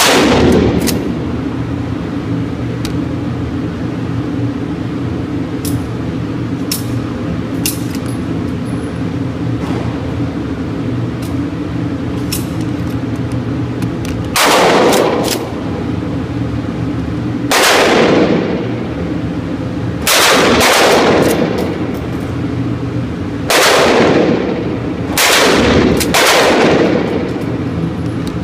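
12-gauge Mossberg 500 pump shotgun firing Winchester Super X shells: one shot at the start, then after a long pause five more shots about two to three seconds apart, each with an echoing tail. A steady low hum runs underneath.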